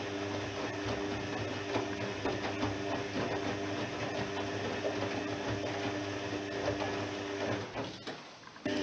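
Privileg 3020 washing machine washing, its motor humming as the drum turns with a light clatter. The drum stops briefly near the end and then starts turning again.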